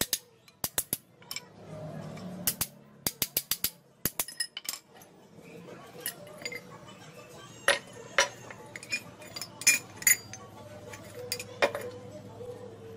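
A small hammer tapping on the pivot pin of a metal shear blade laid on a steel block: quick runs of sharp metallic taps in the first few seconds, then scattered single clinks as the steel parts are handled and fitted together.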